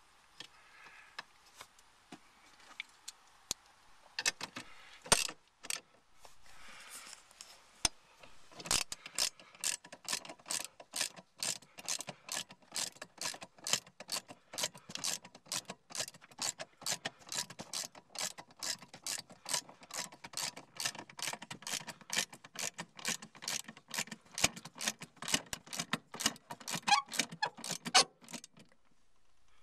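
A ratchet wrench clicking in a steady, quick rhythm, about three clicks a second, as a seat bolt is run in through the bracket. Before that, for the first eight seconds or so, there are only a few scattered clicks and knocks of handling.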